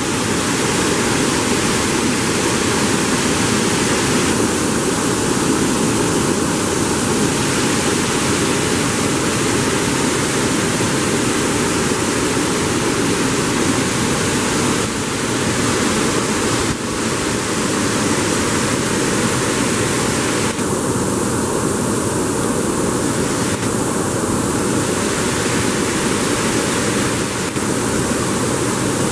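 Water pouring through a river sluice gate and churning into white water below the weir: a loud, steady rush.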